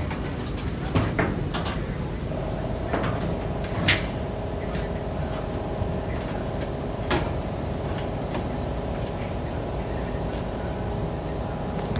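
Sheet-metal dryer front panel being handled and fitted: scattered knocks and clicks, the sharpest about four seconds in, over a steady hum that comes in about two seconds in.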